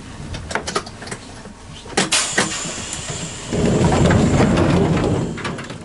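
Running sounds inside the Jōmō Electric Railway DeHa 101 nose-suspended-drive electric car: several sharp knocks and clanks with a thin high squeal about two seconds in, then a louder low rumble for about two seconds from midway.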